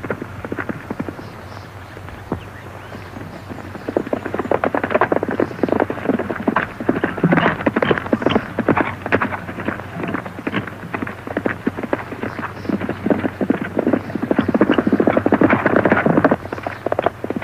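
Horse galloping: a fast, uneven run of hoofbeats, quieter for the first few seconds and louder from about four seconds in, with a steady low hum underneath.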